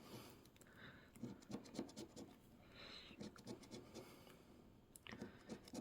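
Faint scratching of a coin rubbing the coating off a scratch-off lottery ticket, in short, irregular strokes.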